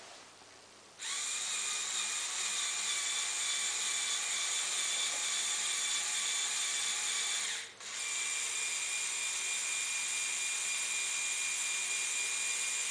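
Small electric motor of a LEGO Technic 8258 crane truck driving the crane through its plastic gears, a steady whine that pauses briefly about two thirds of the way through and then starts again.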